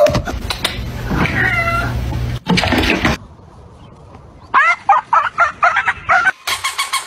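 Cat meowing: one drawn-out meow about a second in, then a quick run of short gliding cries in the second half. Near the end a dog starts barking rapidly.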